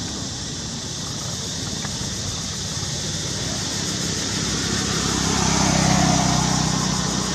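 A motor vehicle passes on the road, its engine growing louder to a peak about six seconds in and then easing off, over a steady high-pitched background drone.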